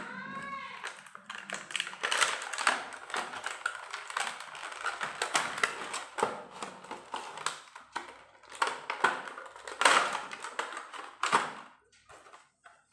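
Clear plastic packaging crinkling and crackling as it is handled and pulled open, with a few louder crackles about two, ten and eleven seconds in, dying down near the end.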